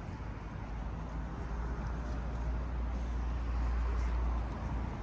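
A motor vehicle passing on the street: a low rumble that swells over about four seconds and then fades, over general traffic noise.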